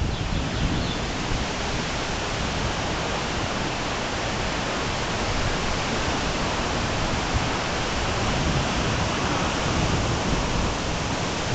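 Strong storm wind blowing through trees and across the microphone: a steady rushing noise with no break.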